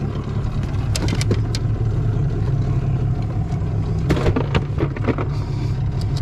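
Outboard motor running steadily, a low constant hum, with sharp knocks and clicks of gear being handled on the boat about a second in and again around four to five seconds in.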